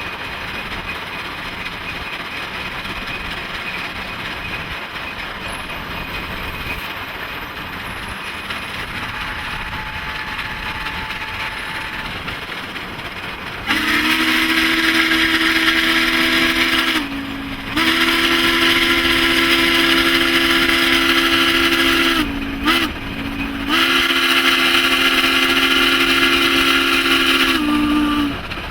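Southern Pacific 4449's steam whistle blowing a chord in four blasts, long, long, short, long: the standard signal for a grade crossing. For about the first half, before the whistle, there is only a steady running noise from the train.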